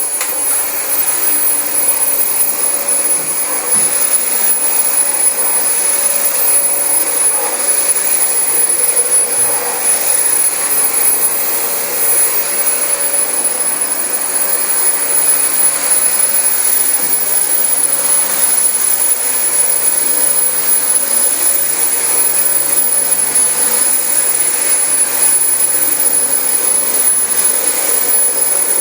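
Dyson DC25 upright vacuum cleaner running steadily while vacuuming carpet: a high, steady motor whine over a rushing hiss of air.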